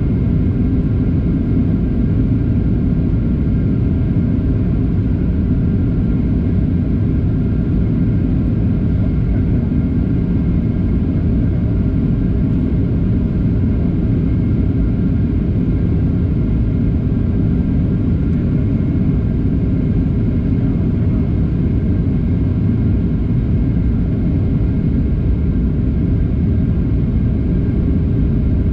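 Jet airliner cabin noise heard from a window seat: the steady rumble of the engines and the airflow over the fuselage, with a faint steady hum on top, as the plane descends toward landing.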